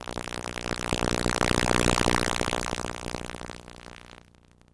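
Music that swells to its loudest about two seconds in, then fades out to near silence just before the end.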